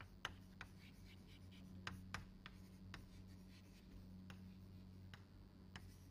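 Chalk writing on a blackboard: faint irregular taps and short scratches as the chalk strikes and drags across the board, over a steady low hum.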